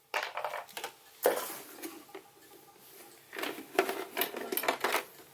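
Handling noise from an electric heater's power cord and plug: irregular light clicks, knocks and rustles, busiest in the second half.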